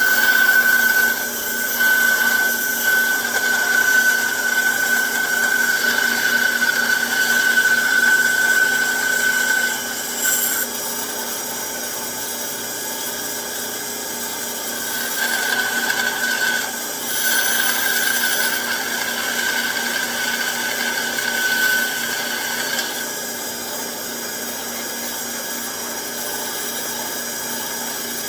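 Band saw running and cutting wood, with a steady motor hum. A high whine and louder cutting noise come in two stretches, for roughly the first ten seconds and again midway, with the saw running more quietly in between and near the end.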